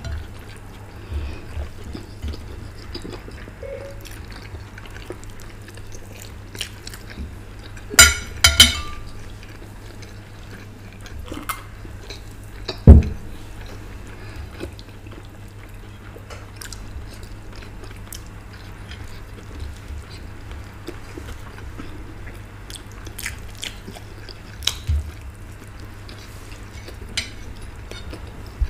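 Two people eating at a table: chewing, with scattered small clicks and scrapes of cutlery on china plates. A few sharp loud clinks come about eight seconds in, and a single dull thump about thirteen seconds in.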